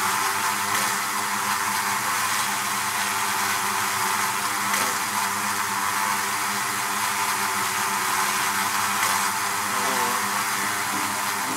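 Steady buzzing hum of a mass of honey bees, a low droning pitch over a dense hiss.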